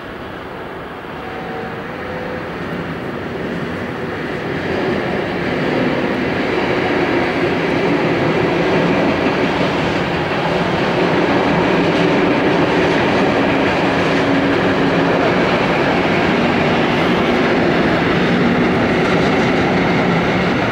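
Freight train running past on its track, growing louder over the first five or six seconds and then holding steady.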